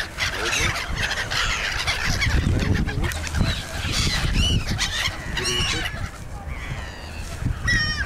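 A flock of black-headed gulls and mallards calling while they are fed: many short, harsh cries overlapping, with one loud cry near the end.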